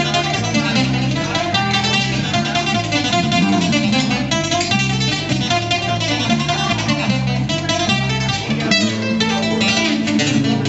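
Live guitar music: an instrumental break with picked and strummed acoustic guitar and no singing.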